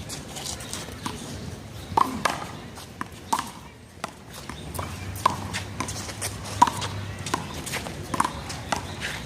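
One-wall handball rally: a small rubber handball is smacked by players' hands and slaps off the wall. There are several sharp smacks, about one every one and a half seconds.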